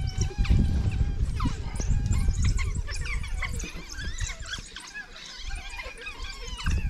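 A pack of African wild dogs twittering: many short, high-pitched chirps and squeals overlapping, the social chatter the pack makes as it rouses itself from rest.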